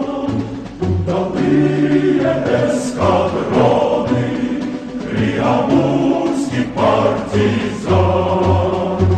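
A choir singing over a low bass line, in phrases of held chords that change about every second.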